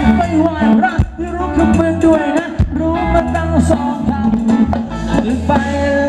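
Live band playing a Thai ramwong dance song, a singer's voice over bass and drums.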